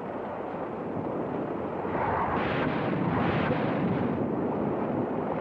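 Rushing, rumbling noise of a warplane ditching and striking the sea, swelling about two seconds in and holding, with no sharp impact.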